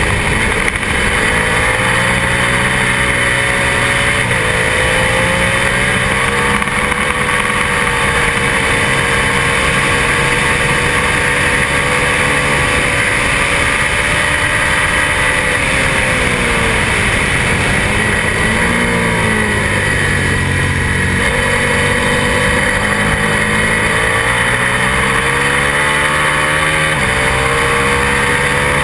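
Twin-cylinder road-racing motorcycle engine at high revs, heard from an onboard camera: the engine note climbs and holds through the gears, falls away for a few seconds past the middle, then rises again.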